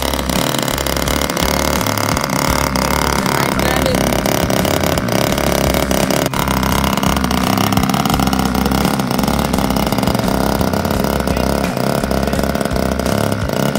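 NGH GT9 Pro 9cc two-stroke petrol engine of a large-scale RC DHC-2 Beaver running steadily on the ground, propeller turning. Its pitch wavers slightly near the middle.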